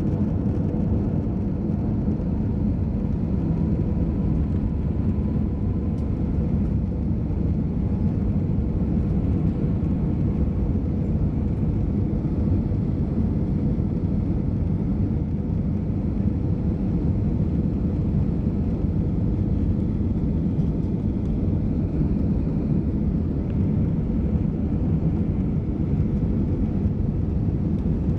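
Steady drone of an Airbus A320's jet engines and airflow heard inside the passenger cabin in flight, an even low rumble with a faint steady hum above it.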